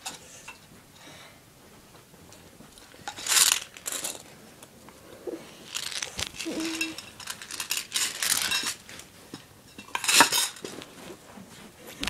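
Clattering and clinking of small hard objects being handled and moved about, in several bursts: one about three seconds in, a cluster from about six to nine seconds, and another near ten seconds.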